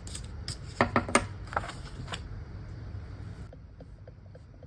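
Paper scratch-off tickets being handled: a few light taps and paper rustles in the first two seconds, then faint room tone.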